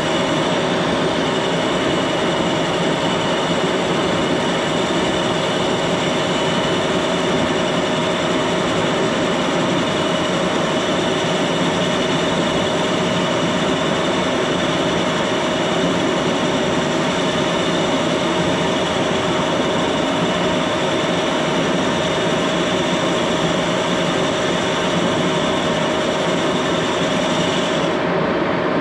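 Axelson engine lathe running steadily with its spindle spinning a large workpiece: a constant machine hum with several steady whining tones. The higher whine cuts off near the end.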